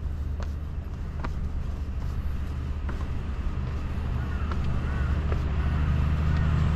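Steady low drone of the Danubi road train's truck engine, growing louder toward the end as it approaches. A few scattered footsteps click on stone.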